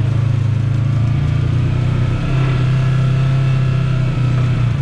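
Side-by-side UTV engine running steadily under way on a dirt trail, a loud low drone that dips briefly about two seconds in.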